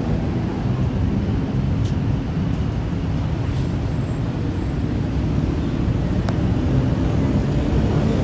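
Steady city road traffic: a dense low rumble of cars and buses.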